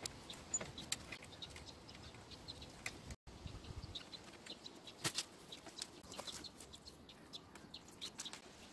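Faint clucking of chickens, with scattered light clicks and taps.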